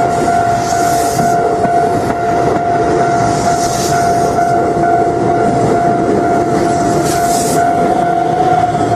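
Japanese electronic level crossing alarm ringing on and on, a steady clang-like tone over a dense low rumble. The crossing is stuck sounding, a fault caused by a lightning strike on the line.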